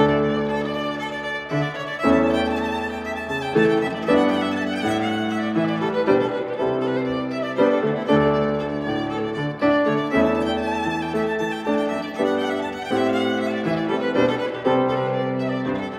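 Violin bowed in a melody of held notes, accompanied by a grand piano.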